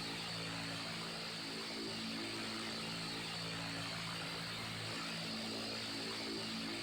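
Electric fan running steadily: an even whir of air from the blades over a low motor hum whose tones swell and fade every second or so.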